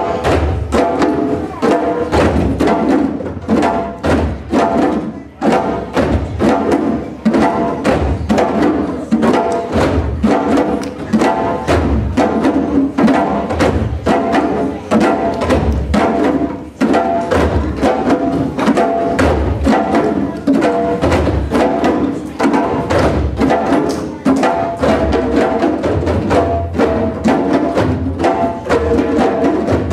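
A group of djembe drums played by hand together, a fast, steady rhythm of many overlapping strikes.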